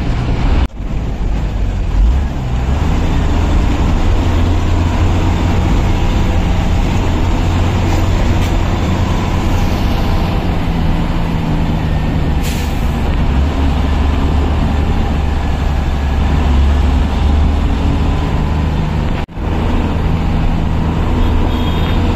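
Bus engine and road noise heard from inside the moving bus: a steady low drone. A short hiss comes about halfway through, and the sound breaks off for an instant twice.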